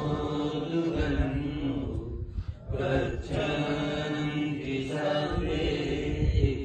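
Buddhist chanting: voices held on long, steady notes, breaking off briefly a little over two seconds in before carrying on.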